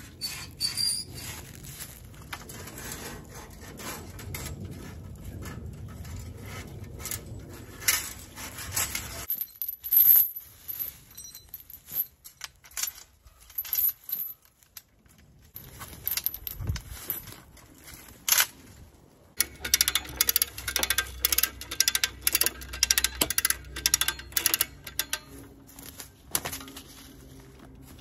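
Woven wire fence clinking and rattling as it is pulled and stretched, with scattered sharp metallic clicks. A quieter lull comes about a third of the way in, and then a dense run of rapid clicks.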